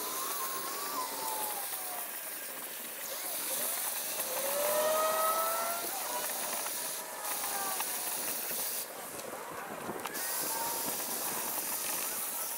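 Vacuum cleaner running with a steady hissing rush of air, its motor pitch sliding up and down as the nozzle sucks up shards of a broken window.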